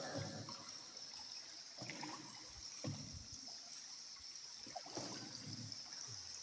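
Paddle strokes dipping into calm water as a small boat is paddled through a cave: soft splashes and trickles every second or two over a steady high hiss.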